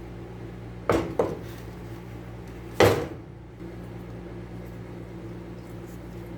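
Kitchenware knocking against a hard surface: two quick knocks about a second in, then a louder one near three seconds, over a steady low hum.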